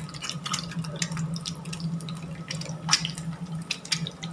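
Egg frying in hot oil in a small pan: steady sizzling full of frequent sharp crackling pops. Under it runs a low steady hum.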